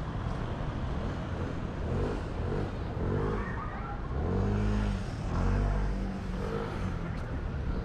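City street traffic: car engines running and passing close by with a steady low rumble, swelling loudest about halfway through.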